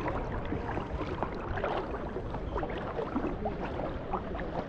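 Busy beach crowd: many overlapping voices chattering and calling over a steady rush of wind and surf.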